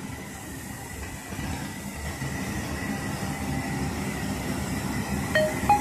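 Steady low rumbling background noise of an airport apron, with a faint steady whine. A few short musical notes come in near the end.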